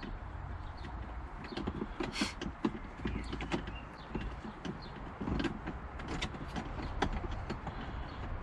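Socket ratchet undoing a bolt on a car's centre console: a run of irregular sharp clicks and small knocks of the tool.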